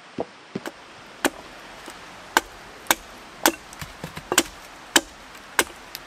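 A hatchet chopping at a wooden stake held against a log, with sharp chops about every half second from about a second in. A couple of dull footfalls on a stone path come just before the chopping.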